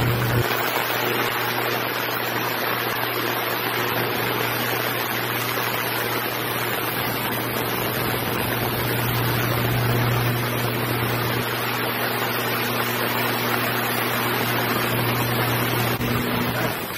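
Ultrasonic parts cleaner running with its tank full of connecting rods: a loud, steady buzzing hum with an even hiss over it.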